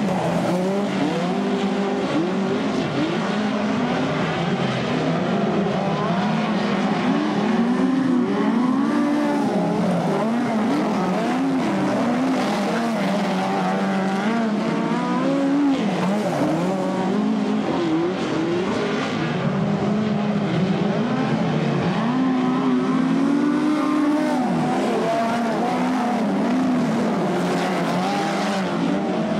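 Several speedcars (midget racing cars) racing together on a dirt oval, their engines revving continuously. The overlapping engine notes rise and fall throughout.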